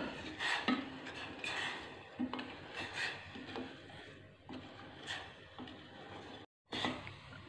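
Wooden spatula stirring palm-sugar syrup in a stainless steel pot, scraping and knocking against the pot's sides and bottom in irregular strokes.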